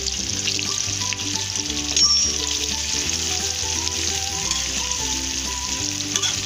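Sliced onions sizzling steadily as they fry in hot mustard oil in an aluminium kadai, stirred with a spatula. A brief louder scrape comes about two seconds in.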